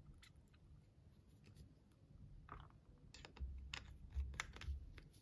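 A run of light plastic clicks and taps from a plastic ink refill bottle being handled after pouring, starting about halfway through and coming several times in quick succession.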